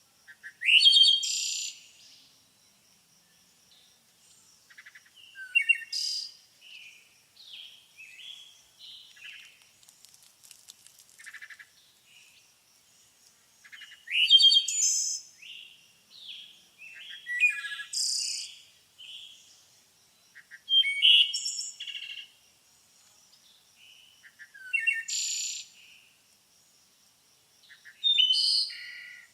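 Birds singing: loud, quick chirped phrases with rising and falling whistles come every three to four seconds, with softer chirps in between.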